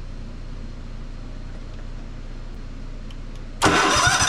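A steady low hum, then about three and a half seconds in the starter suddenly cranks the Cub Cadet's 679cc EFI engine over, loud with a rhythmic chug, as the engine is turned over to test the fuel injector's spray.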